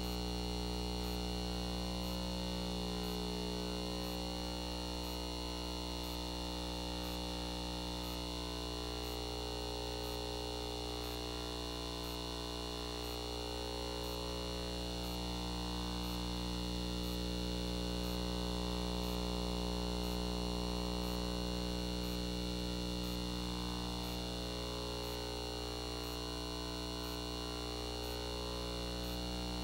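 Steady electrical hum and buzz made of many fixed tones, with faint high ticks about once a second.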